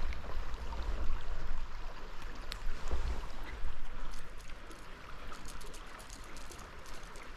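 Creek water running steadily, with a few faint clicks over it.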